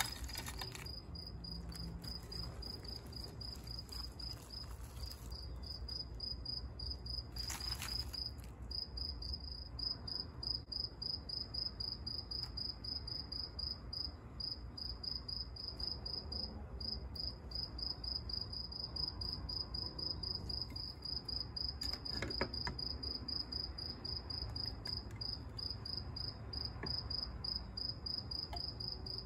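A cricket chirping in a fast, even pulsing trill that runs on with only brief breaks, over a low steady hum. A few brief clinks of kitchen utensils come through, one at the start, one about eight seconds in and one about twenty-two seconds in.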